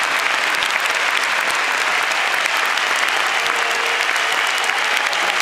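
A large arena crowd applauding steadily.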